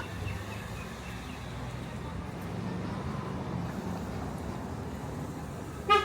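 Steady low outdoor background rumble with faint voices, and one short, loud pitched tone right at the end.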